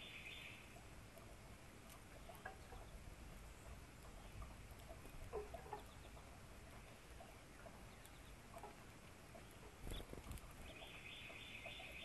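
Faint songbird song: a short, rapidly repeated high phrase at the start and again near the end. In between come scattered soft chirps and clicks, and a brief soft knock about ten seconds in.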